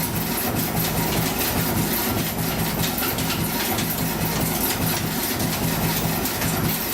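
Vertical lathe taking an interrupted cut: the cutting tool knocks in rapid repeated strikes as it enters and leaves the broken surface of the workpiece, over the steady hum of the machine.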